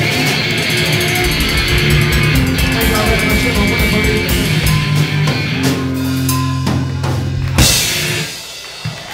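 Live rock duo of drum kit and electric guitar playing a song's closing flourish. It ends on one loud final hit about seven and a half seconds in, then rings down.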